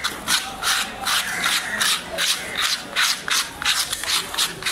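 A large fish-cutting knife rasped in quick, even strokes, about three a second, the steel scraping against a hard surface.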